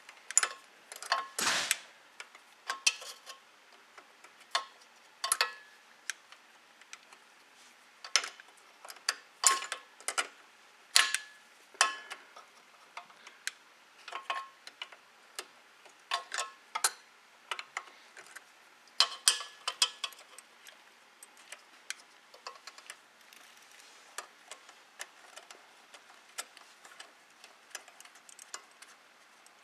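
Irregular sharp metal clicks and ticks, some in short runs, from hand tools working the carburetor mounting nuts off a snowblower engine; they grow sparser near the end.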